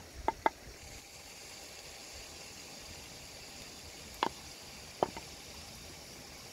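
Wooden pestle knocking in a clay mortar: two quick knocks near the start, then single knocks about four and five seconds in, over a faint steady hiss.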